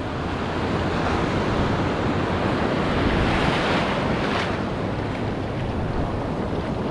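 Ocean surf washing onto the shore as a steady hiss, with one wave swelling louder about three to four and a half seconds in.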